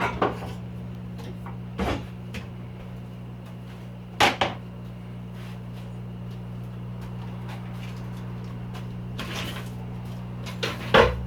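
The first popcorn kernels popping in a lidded pot of hot oil: a handful of sharp, separate pops a second or more apart, with a pair close together near the middle and two near the end. Under them runs a steady appliance hum that cuts off right at the end.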